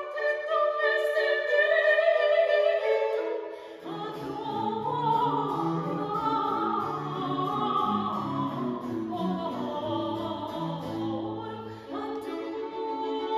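Baroque soprano singing an 18th-century aria with a small period-instrument ensemble of violins, harpsichord and viola da gamba. The low bass line comes in about four seconds in and drops out briefly near the end.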